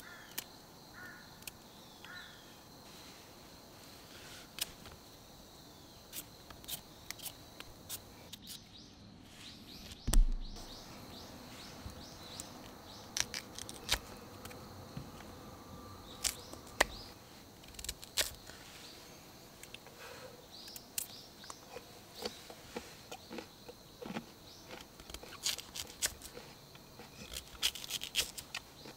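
A knife slicing raw sweet potato into rounds on a split wooden log: irregular crisp cuts and taps of the blade against the wood, with one heavier thump about ten seconds in. Birds chirp faintly in the background.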